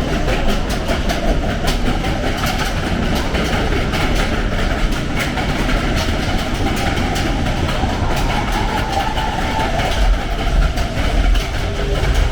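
Matterhorn Bobsleds roller coaster car running on its steel track: a steady low rumble with rapid, irregular clacking and rattling, and a couple of louder low thumps about ten seconds in.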